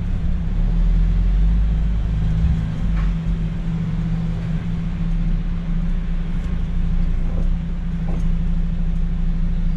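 MAN truck's diesel engine running as the truck drives slowly, heard inside the cab as a steady low drone. The rumble is deeper and stronger for the first two seconds or so, then settles.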